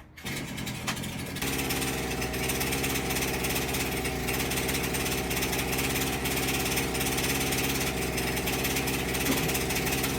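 Pole chainsaw engine running steadily, growing louder about a second in and then holding an even note.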